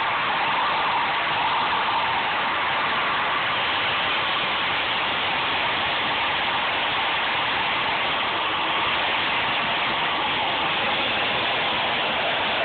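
Ford Crown Victoria's V8 held at high revs in a stationary burnout, the rear tyre spinning against the pavement: a loud, steady mix of engine and tyre noise.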